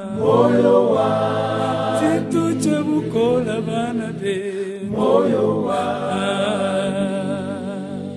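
A choir singing a cappella in harmony, holding long notes that waver in pitch; a fresh phrase begins about five seconds in.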